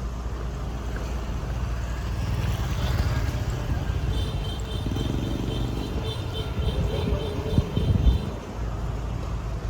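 Street traffic: motorbikes and cars running past, with the loudest vehicle passing close about seven to eight seconds in. A high, pulsing tone sounds for a few seconds in the middle.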